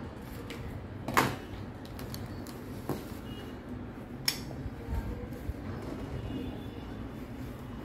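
Room noise with a few sudden knocks and clicks: the loudest about a second in, a smaller one about three seconds in, and a sharp click a little after four seconds.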